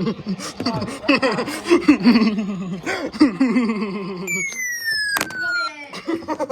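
Loud laughing in short bouncing pulses, then a high tone sliding steadily downward for about a second and a half, with a sharp click near the end.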